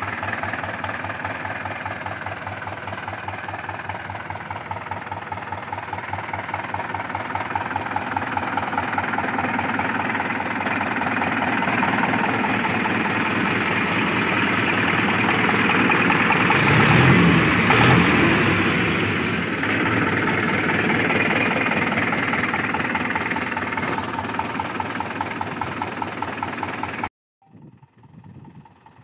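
Mahindra 415 DI tractor's diesel engine running close up, a steady rapid chugging that grows louder toward the middle and then eases back. About two seconds before the end it drops suddenly to a much fainter engine sound.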